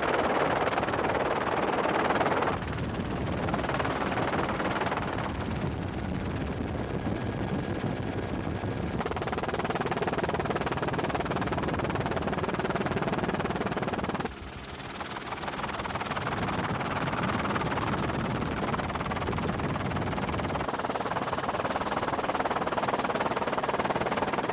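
Steady noise of a helicopter heard from on board. It changes abruptly twice, about two and a half and fourteen seconds in.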